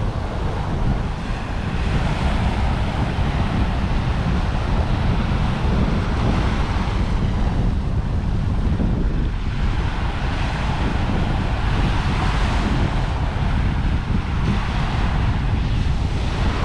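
Small ocean waves breaking on a sandy beach and washing up the shore, the hiss of the surf swelling and fading every few seconds. Heavy wind rumble on the microphone runs under it.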